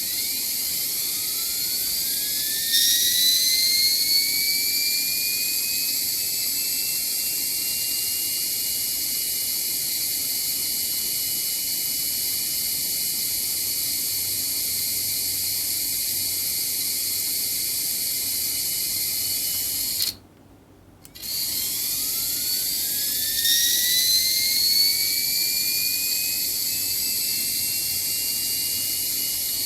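Analog electronic jet-engine sound-effect circuit: a high hissing rush with whining tones that glide upward as the 'engine' spools up over the first few seconds, then hold steady. About two-thirds through it cuts out suddenly for a second and restarts with a second spool-up whine.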